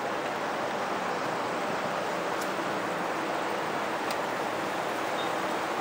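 Steady city street noise from traffic on a busy road: an even hiss with no distinct passing vehicle or horn.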